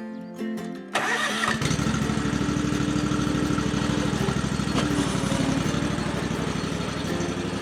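Riding mower's small engine cranking and catching about a second and a half in, then running steadily at idle.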